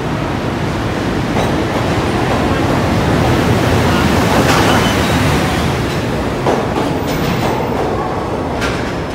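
An EF510 electric locomotive and its container wagons rolling past close by as the freight train arrives: a steady, loud rumble and rush of the locomotive and wagons, with a few sharp clicks of wheels over rail joints in the latter part.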